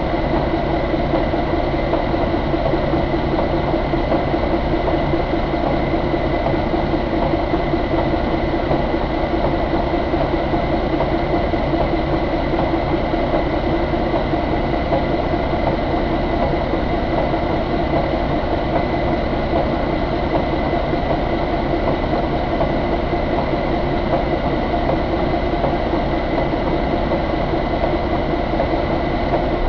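Cummins ISX15 inline-six diesel engine idling steadily, with a thin steady high-pitched whine over its running.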